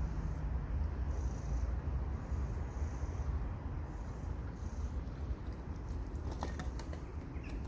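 Outdoor background noise: a steady low rumble with faint, short high chirps repeating about once a second, and a few sharp clicks near the end.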